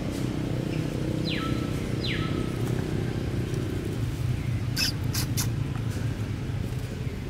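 Two short, high animal squeaks, each falling steeply in pitch, about a second apart, over a steady low rumble; three sharp clicks follow a little past the middle.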